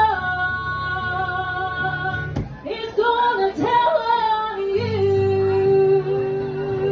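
A woman singing live with her own acoustic guitar. She holds a long note, breaks off briefly after about two seconds, sings a few quick phrases, then holds another long note over strummed guitar chords.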